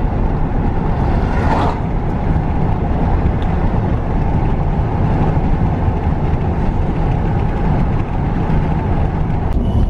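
Car driving along a road: steady road and engine noise.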